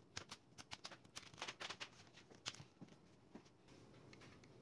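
Quick irregular run of sharp plastic clicks and snaps as a Dell Inspiron 5391's screen bezel is pried loose from its clips by hand, thinning to a few faint ticks about three seconds in.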